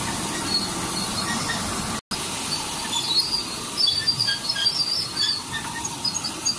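Ride-on miniature railway train running along its track: a steady rolling rumble and hiss. About two seconds in, the sound drops out briefly, and after that scattered short high chirps and clicks sit over the running noise.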